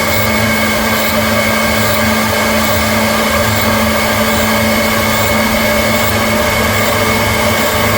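CNC milling machine running steadily, a constant motor and spindle whine with several fixed tones over a hiss.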